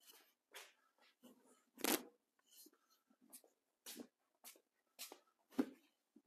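Soft shop handling noises: a run of short scuffs, rustles and light knocks, roughly two a second, with the two loudest knocks about two seconds in and near the end.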